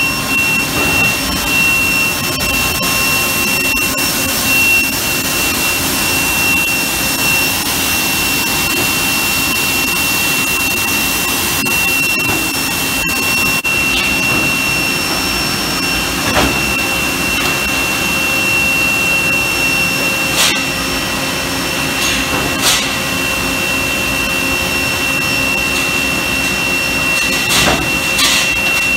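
Yoder W-20 tube mill running: a loud, steady machine noise with a high, constant whine over it. A few sharp clicks and knocks sound in the second half.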